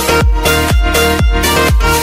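Electronic dance background music with a steady kick drum, about two beats a second.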